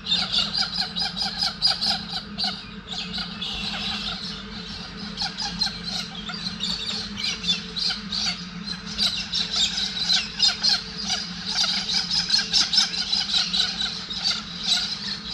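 A dense chorus of many birds chirping and calling at once, over a steady low hum.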